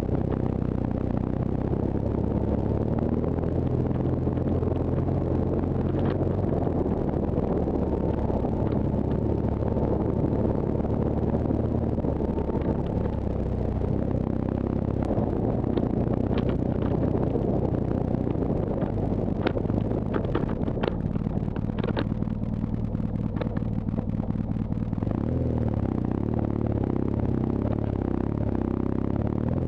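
BMW R1200GS boxer-twin engine running as the motorcycle is ridden off-road, its pitch shifting a few times with the throttle. Scattered clicks and knocks come through, mostly in the second half.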